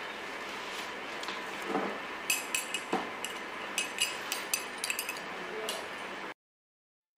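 A run of about a dozen quick, light clinks of something small against a ceramic coffee mug, over a steady room hum; the sound cuts off to silence near the end.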